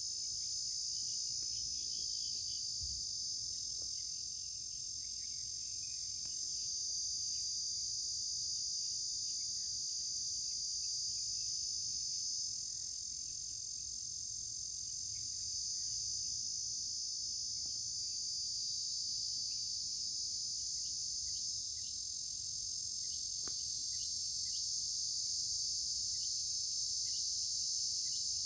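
Steady, high-pitched insect chorus, shrilling without a break and swelling slightly in loudness now and then.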